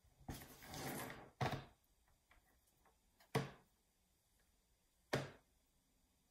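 A soft rubbing scrape, then three short knocks a couple of seconds apart, as the hare sculpture on its round turntable board is turned and handled on the table.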